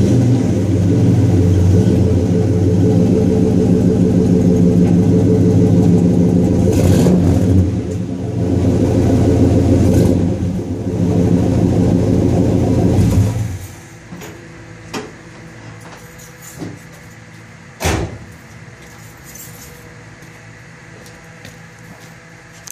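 Swapped-in 5.3-litre LS V8 in a 1983 Oldsmobile Cutlass running through a 2.5-inch exhaust with Flowmaster Super 44 mufflers, heard close to the tailpipe at floor level. The exhaust note is steady with a couple of brief dips, then stops abruptly about 13 seconds in, leaving only a few faint clicks.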